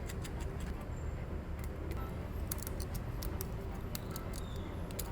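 Scattered light clicks and taps of small metal repair tools on a phone, over a steady low hum.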